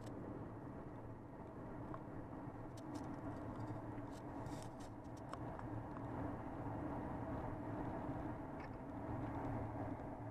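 Car driving along a road: a steady mix of engine and tyre noise, with a few faint clicks a few seconds in and another near the end.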